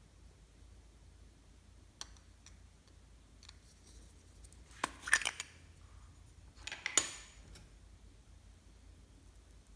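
Light clicks, taps and clinks of small hard objects being handled, with a single click about two seconds in and two short clusters of sharper clicks and scrapes about five and seven seconds in.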